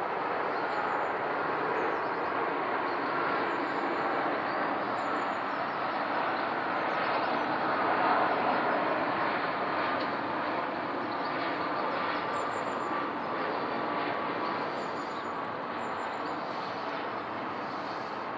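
Airbus A330-300 jetliner on approach passing overhead, its Rolls-Royce Trent 700 engines heard as a steady jet rumble. The noise swells to its loudest about eight seconds in and then slowly fades.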